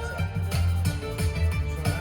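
Music with a pulsing bass beat.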